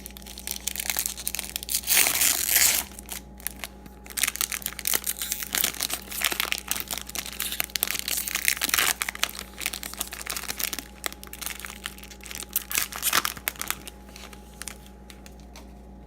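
A trading-card pack wrapper being torn open and crinkled by hand: a dense run of crackling that is loudest about two seconds in and dies away near the end.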